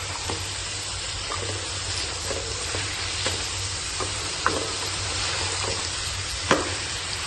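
Mutton pieces and halved tomatoes sizzling in a karahi, stirred with a metal spoon that scrapes and clinks against the pan now and then. The loudest clink comes near the end.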